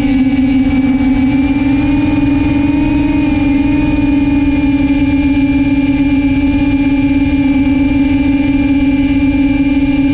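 FPV quadcopter's motors and propellers humming steadily in cruising flight, the pitch rising slightly about two seconds in and then settling, with a wavering beat from the several propellers.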